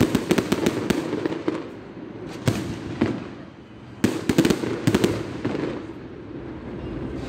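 Aerial fireworks display: shells bursting overhead in rapid bangs and crackles, coming in clusters with short lulls between, and a sudden loud flurry about four seconds in.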